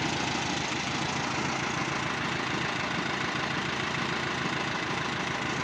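Volkswagen Kombi engine idling steadily, with a fast, even pulsing.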